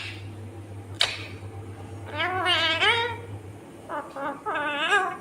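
Indian ringneck parrot giving wavering, trembling calls: one long call a couple of seconds in, then two shorter ones near the end, after a sharp click about a second in.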